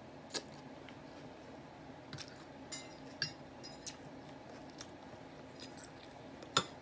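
A person chewing food with a few short, sharp mouth clicks, the loudest near the end.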